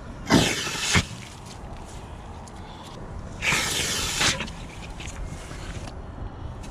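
PVC clam gun working in wet tidal mud: two short, wet sucking rushes about three seconds apart as the tube is worked and pulled up with its core of mud.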